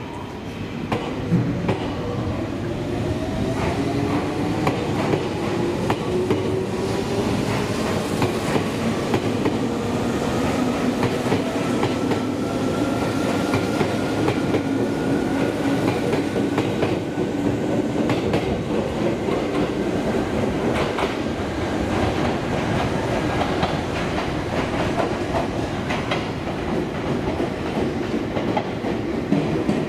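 Izukyu 8000 series electric train pulling away from the platform. Its motor whine rises slowly in pitch as it gathers speed, over the clatter of wheels on rail joints.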